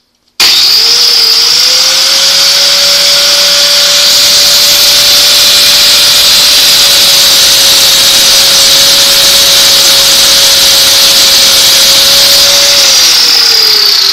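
Bench grinder switched on about half a second in, its whine rising to full speed, then grinding the steel rivet off a 110 body-grip trap. Near the end it is shut off and the whine falls as the wheel spins down.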